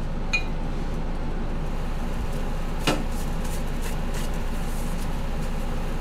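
A steel exhaust J-bend tube being handled on a band saw's metal table, with two light metallic clinks, one shortly after the start and one about halfway through, over a steady hum.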